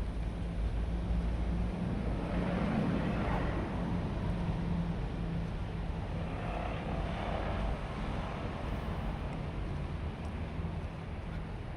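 Road traffic: a steady low engine hum, with two vehicles passing by, about two and six seconds in.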